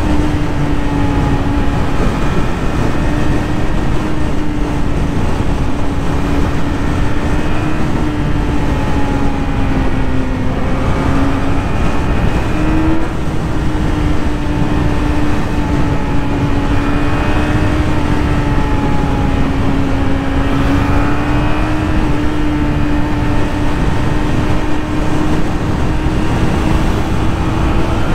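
Yamaha YZF-R6 inline-four engine running at freeway cruising speed. It holds a steady note that rises and dips a little with small throttle changes, under heavy low wind rumble on the microphone.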